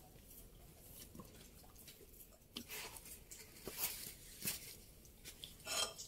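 Faint scattered scuffs and clicks of people moving over cave rock, with a louder rustling scrape near the end.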